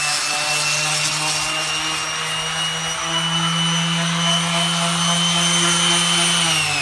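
Electric sander running steadily at speed, then switched off near the end, its whine falling as the motor spins down. The sander had started up by itself.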